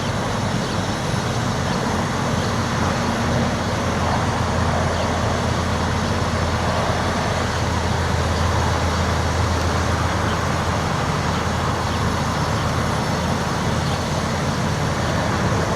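Steady road traffic noise: vehicles driving past, with a low engine hum that swells in the middle and eases off again.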